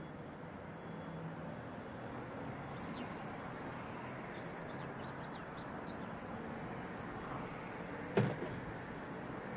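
Steady outdoor ambience of distant city hum. A few quick, high bird chirps come in the middle, and a single sharp knock comes near the end.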